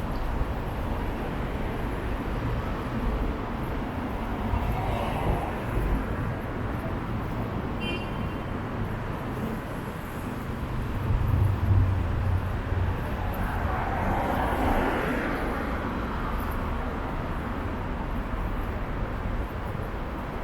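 City street traffic: a steady hum of cars and buses, with a heavy vehicle passing loudly about eleven seconds in and another passing a few seconds later. A brief high beep about eight seconds in.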